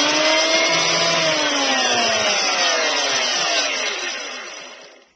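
Axminster WP150 electric power planer running: its motor and cutter block rise slightly in pitch for about a second, then wind down with a steadily falling whine and fade to a stop near the end.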